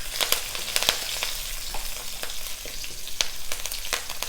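Curry leaves, green chillies, cumin and mustard seeds sizzling in hot oil in a pan as they are sautéed, a steady hiss with many sharp crackles and pops.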